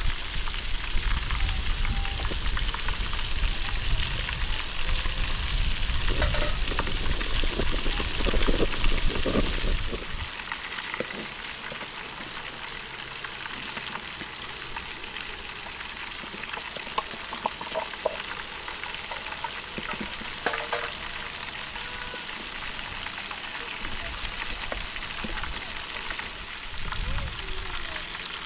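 Chicken pieces frying in hot oil: a steady sizzle, with a low rumble that drops away about ten seconds in and a few light clicks.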